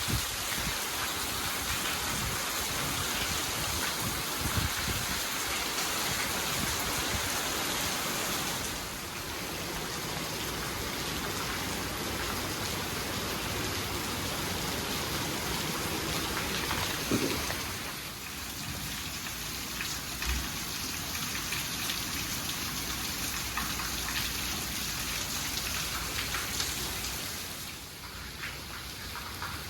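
Heavy rain falling steadily, a dense hiss of rain on surfaces with a few sharper drips and knocks. The hiss steps down a little in loudness three times.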